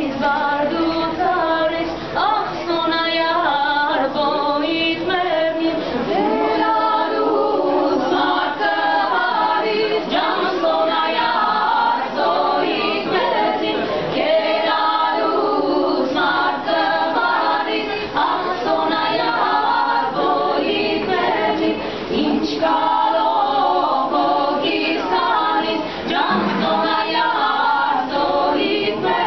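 Women's vocal ensemble singing a cappella: several voices in harmony, with no instruments, in continuous phrases.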